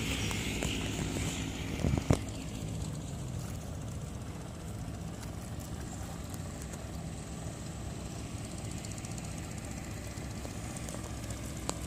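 Engine of a Yanmar AP4 rice transplanter running steadily, a low even hum. A couple of sharp knocks about two seconds in.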